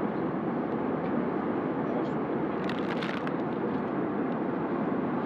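Steady cabin noise of an Airbus A321 in flight, an even rush of air and engine noise. A brief cluster of clicks and rattles comes about three seconds in.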